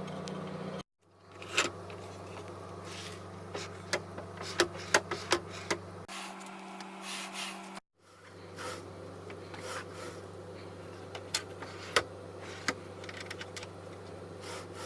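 A steady low mechanical hum with wooden parts clicking, knocking and sliding against each other, in three short edited stretches.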